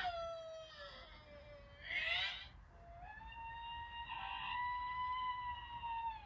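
High-pitched cartoon screaming from a man. A drawn-out cry slides down in pitch, a short harsh shout comes about two seconds in, then a long yell is held on one high note and drops off at the end.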